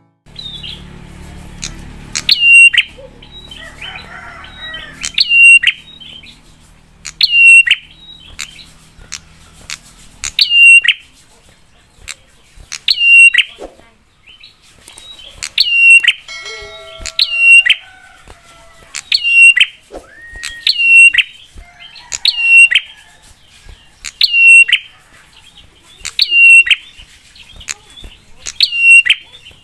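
Prenjak (prinia) calling, giving a loud, sharp, hooked note over and over, about one every second and a half to two seconds.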